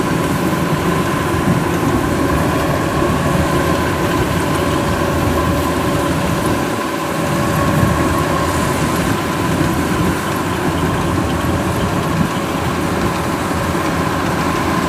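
Kubota DC93 combine harvester running steadily under load as it cuts and threshes flattened, waterlogged rice: a continuous diesel drone with a steady whine over it.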